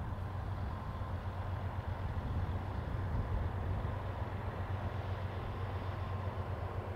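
Diesel freight locomotives working under power in the distance, a steady low engine drone.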